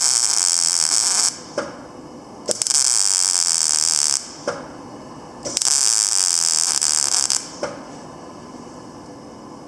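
Panasonic YD160SL7 (MINI160) semi-automatic welder running test welds: the arc burns in three bursts of about one and a half to two seconds each, each with a brief stutter as it strikes. Near the end only a low machine hum is left.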